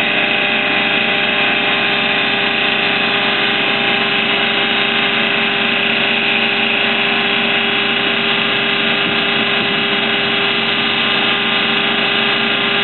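Fuel-polishing pump rig running steadily while drawing diesel and sludge out of a tank through a suction hose: a constant mechanical drone with a steady whine over it.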